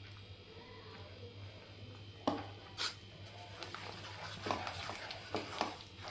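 Wooden spatula stirring and scraping a thick gram-flour and ghee mixture in a kadai. Two sharp knocks come a little after two seconds in, then a run of short scrapes and taps from about three and a half seconds on, over a steady low hum.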